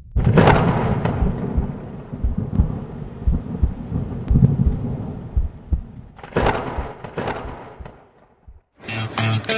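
Sound effects for an animated logo intro: a sudden hit followed by a long, thunder-like rumble that slowly fades, then a second hit about six seconds in that fades out as well. Guitar music starts near the end.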